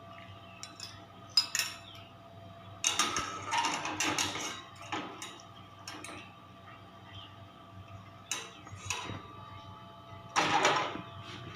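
Kitchen utensils clinking and scraping against a pot and bowl in several short bursts as boiled vegetables are transferred into the bowl.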